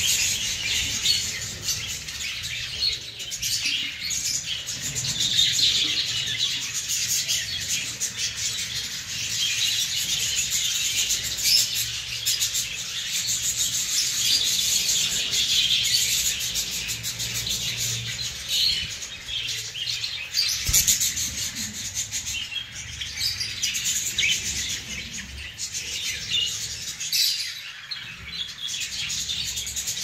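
A flock of budgerigars chattering and chirping continuously, a dense, unbroken warbling chatter, with a few handling knocks and rubs against the clay nest pots.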